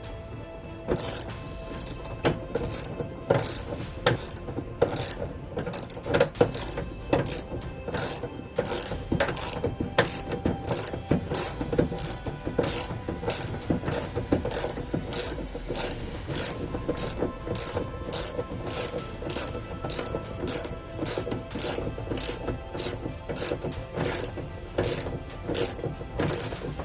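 Hand ratchet wrench clicking in steady back-and-forth strokes, about two clicks a second, as bolts are tightened down.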